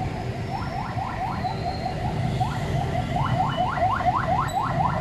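A car alarm siren sounding a run of quick rising whoops, scattered at first and then coming about five a second from about three seconds in, over the low rumble of street traffic.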